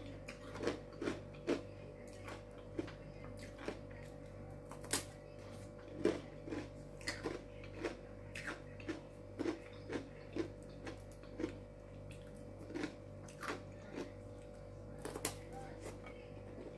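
Close-up chewing of crunchy crispbread: many short, sharp crunches and mouth clicks at an uneven pace, about two a second, over a steady low electrical hum.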